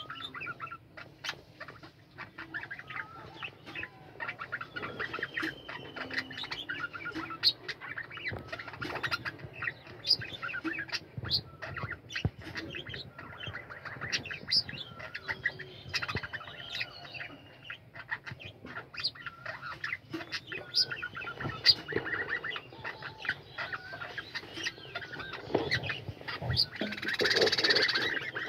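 A colony of budgerigars chattering: many quick, overlapping chirps and warbles, with a few longer drawn-out whistles. Near the end comes a louder, noisy burst lasting about a second and a half.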